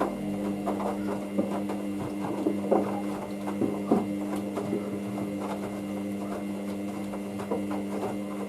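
Hoover DYN9144D3X washing machine running a wash, its motor turning the drum with a steady hum. Irregular knocks and clicks come from the tumbling towel load.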